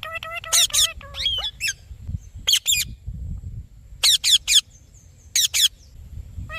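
Indian ringneck parakeet calling: short, shrill squawks in quick groups of two or three, repeated several times with brief pauses between.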